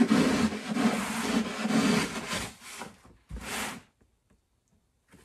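A knife blade cutting at an angle through foil-faced fiberglass duct board: a rough rasping cut in uneven strokes for about three seconds, then one brief scrape.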